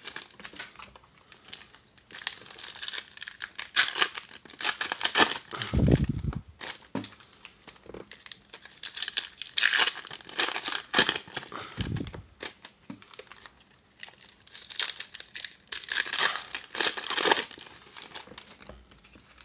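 Foil wrappers of Topps baseball card packs being torn open and crinkled by hand, in repeated bursts of rustling. There is a dull thump about six seconds in and another about twelve seconds in.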